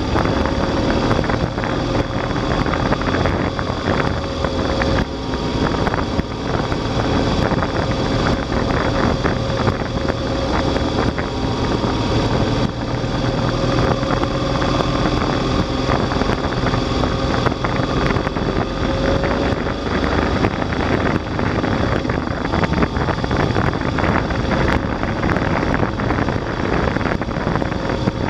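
Motorcycle engine running steadily at road speed, mixed with heavy wind rush on the bike-mounted camera's microphone.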